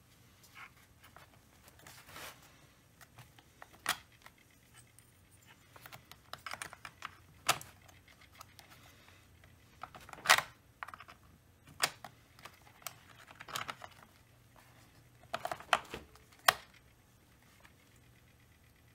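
Irregular sharp clicks and taps of metal and plastic parts and hand tools being handled while working on a chainsaw, about a dozen spread out, with quiet gaps between.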